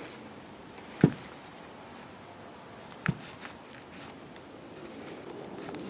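Two light knocks about two seconds apart as glued glass pieces are handled and pulled on to test the glue joint.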